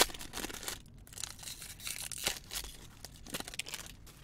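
Foil wrapper of a 2021 Topps Inception trading card pack torn open with a sharp rip at the start, then lighter crinkling and rustling as the wrapper is peeled back and the cards are pulled out.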